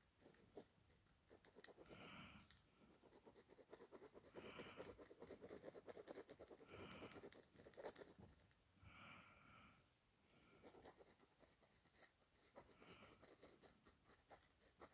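Faint scratching of a pen on sketchbook paper as it shades in quick back-and-forth hatching strokes, busiest through the middle, with soft breathing close to the microphone every couple of seconds.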